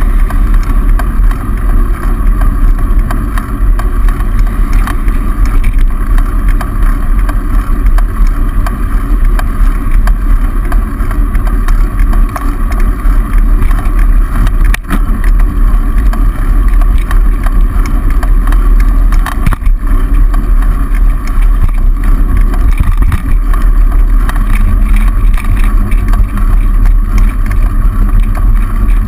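Loud, steady wind rumble on the microphone of a camera on a moving bicycle, with road noise beneath it and two brief knocks, about fifteen and twenty seconds in.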